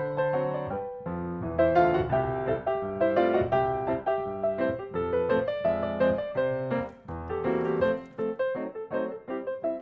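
Background piano music, a melody of short notes over low sustained chords.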